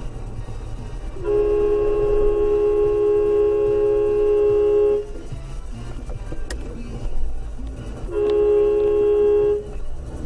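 Car horn sounding two long honks, the first about four seconds long and the second about a second and a half, over a steady low rumble of traffic and road noise.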